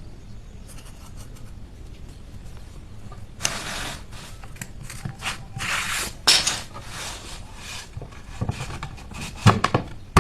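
Hand work on wooden pieces: short scraping or rubbing strokes, then a few sharp knocks near the end.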